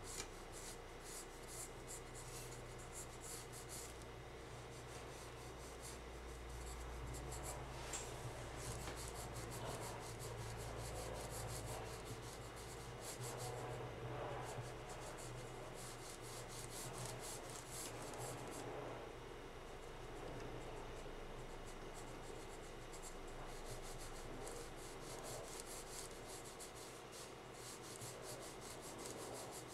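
Pencil lead scratching and rubbing across sketchbook paper in quick, repeated shading strokes, over a faint low hum.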